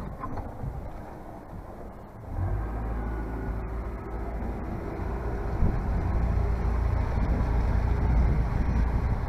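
Yamaha outboard motor throttled up about two seconds in, then running steadily as the boat gets under way, a low steady drone.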